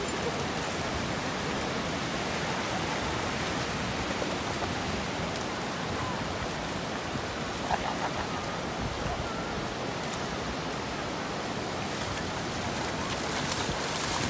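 Steady rush of ocean surf washing onto a sandy beach, with splashing in the shallows near the end.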